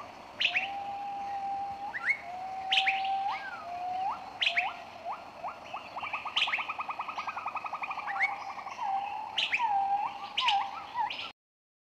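Bird song: held whistled notes that sweep up at their start, sharp high chirps, and a fast rattling trill in the middle, cutting off abruptly near the end.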